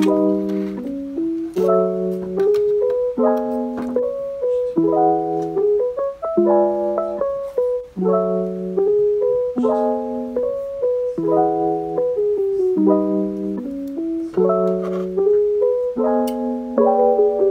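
Background music: piano chords in a steady, repeating pattern, changing about every second and a half.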